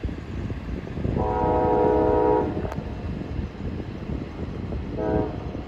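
Diesel locomotive horn sounding a long blast of about a second and a half, then a short blast near the end, several notes at once, over a low rumble.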